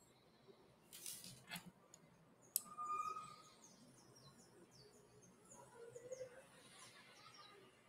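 Near silence: faint room tone with scattered faint high bird chirps. There is a soft rustle about a second in and a sharp click a little later.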